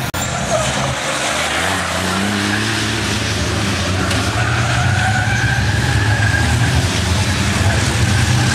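A pack of race trucks' diesel engines running hard through a corner, getting louder. A drawn-out high whine rises and falls over it about halfway through.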